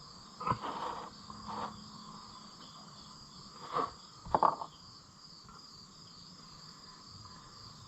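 Steady chirping insect chorus, with four short sharp knocks, the loudest about four and a half seconds in.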